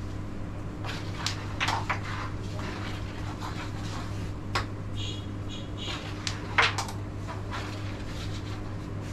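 A carrom striker being handled on a wooden carrom board: a few scattered sharp wooden clicks and taps, the loudest about two-thirds of the way through, over a steady low hum.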